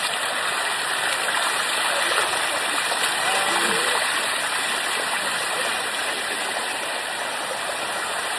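Water rushing steadily down the Bua Tong "Sticky" Waterfall's cascade, an even, unbroken rush.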